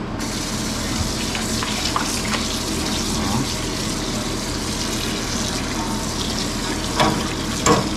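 Kitchen tap running steadily into a sink while meat is rinsed under it, with two short, louder bursts near the end.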